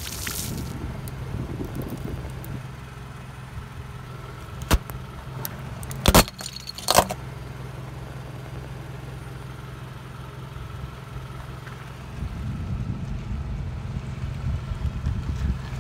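Car engine idling as its tyre rolls slowly over things on asphalt: a drink carton bursts with a spray of liquid right at the start, three sharp cracks come in the middle, and a rougher crunching rumble fills the last few seconds as the tyre crushes cream-filled chocolate biscuits.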